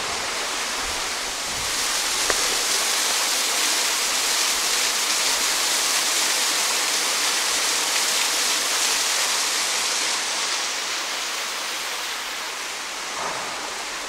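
Waterfall rushing: a steady hiss of falling water that swells about two seconds in and eases off a little after about ten seconds.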